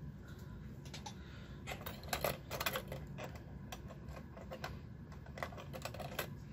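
Small metal clicks and rattles from a Brother knitting machine's needle bed as stitches are moved and needles shifted by hand for a decrease. The clicks come in two quick clusters, about two seconds in and again near the end.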